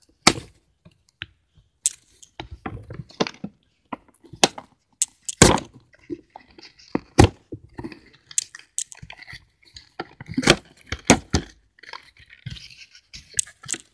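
Clear plastic packaging and a cardboard box being handled: irregular crinkling and rustling with sharp clicks and snaps as a figure and its plastic insert are worked out of the box, the loudest snaps at about half-second to several-second intervals.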